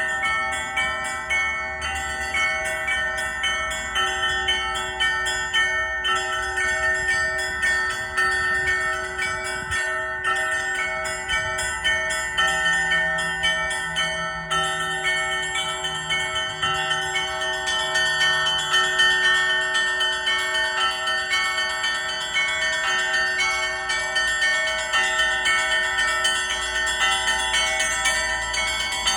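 Orthodox church bells rung together in a continuous festive peal. Small bells are struck rapidly over the longer, steady ringing of larger bells.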